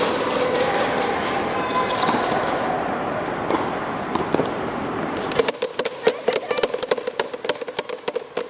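Tennis ball being struck by rackets and bouncing on an indoor hard court, sharp knocks over a steady background din. A little past halfway the din cuts off suddenly, leaving quick irregular taps and knocks several times a second.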